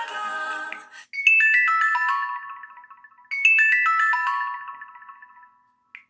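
Built-in ringtone of an LG Optimus L5 II previewing through the phone's small speaker: a short phrase of bell-like chime notes stepping downward, played twice. Another tone cuts off about a second in, just before it starts.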